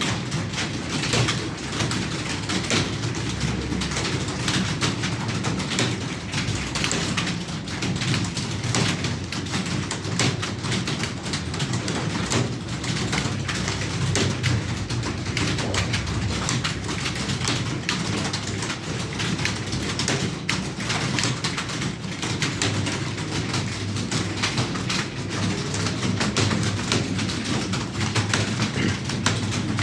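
Rapid, continuous typing on a computer keyboard: a dense run of irregular key clicks during a Hindi typing speed test.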